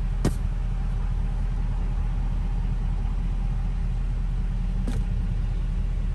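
Duramax 6.6 L V8 turbodiesel of a tuned, emissions-deleted 2018 Chevy Silverado idling steadily, heard from inside the cab. Two short clicks sound over it, one just after the start and one about five seconds in.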